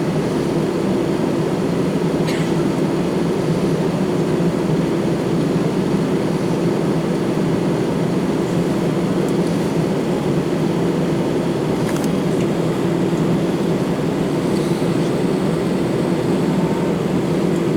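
Airbus A319-112 with CFM56 engines: a steady, even rumble of engine and airflow noise that does not rise or fall.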